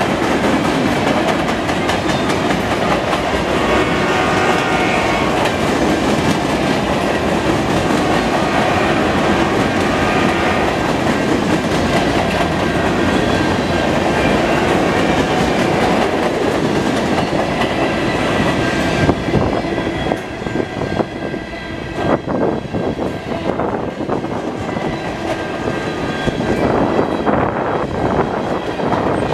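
Empty centre-beam flat cars of a freight train rolling past, their steel wheels clacking over the rail joints, with brief thin high tones a few seconds in. The rumble eases in the last third, leaving the wheel clicks standing out.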